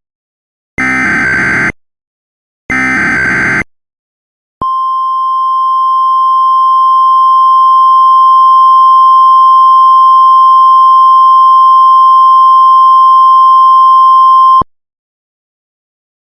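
Emergency Alert System signal. Two short bursts of the SAME digital header, a screechy data warble repeated back to back, are followed by the NOAA Weather Radio 1050 Hz warning alarm, a single steady tone. The tone grows louder over its first few seconds, holds for about ten seconds and then stops abruptly, announcing a tornado warning.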